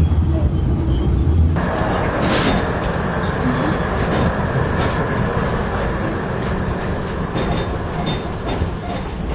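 Older high-floor Vienna tram running on its rails, heard from inside the passenger car: a steady rumble and rattle of wheels on track with scattered clicks. About a second and a half in, the sound changes abruptly from a deep rumble to a brighter rattling noise. Near the end there is a faint high squeal.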